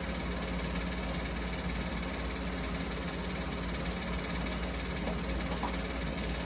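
A steady low hum with a hiss over it, unchanging, with no distinct events.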